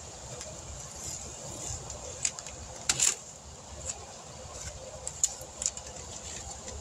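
Masking tape and masking paper being peeled off a painted truck fender: irregular sharp crackles and rips, the loudest a cluster about three seconds in.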